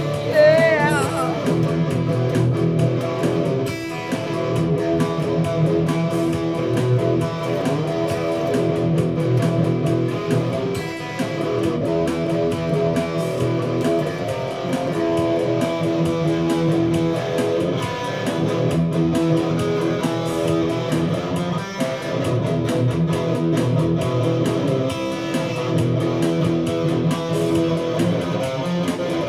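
Electric guitar, a PRS SE Standard, strumming and picking chords steadily in an instrumental passage over a BeatBuddy drum-machine rhythm.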